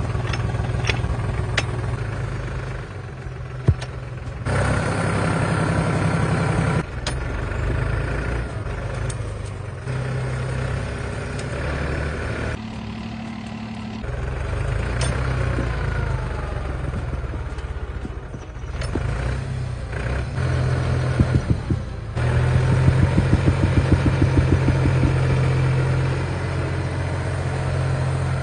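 Farm tractor engine running steadily, with the sound changing abruptly several times. It grows louder, with a rapid pulsing, about two-thirds of the way through as the tractor drags a large rock out of the ground on a strap.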